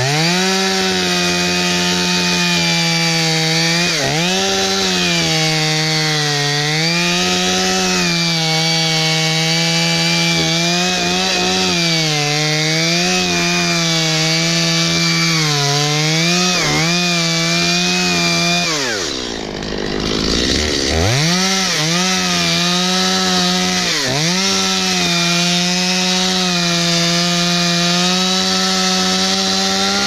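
Stihl MS 250 two-stroke chainsaw at high revs cutting through a coconut palm trunk near its base, the engine pitch dipping and recovering as the chain bites. About two-thirds in, the throttle drops back to idle for a second, then opens up again and the cut carries on.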